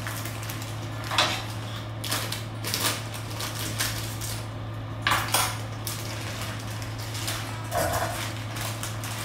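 Kitchen dishes and utensils clattering in a string of irregular knocks, over a steady low hum.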